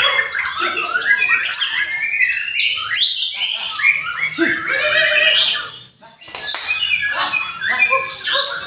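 White-rumped shama song: a loud, unbroken stream of rapidly changing whistles, glides and harsh chattering notes.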